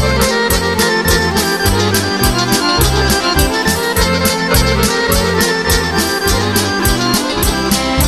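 Instrumental break in a sevdah folk song played by a band: an accordion carries the melody over pulsing bass and a steady beat, with no singing.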